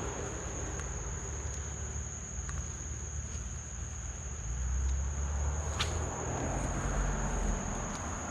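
Steady, high-pitched chorus of insects, with a low rumble beneath it and a single sharp click about six seconds in.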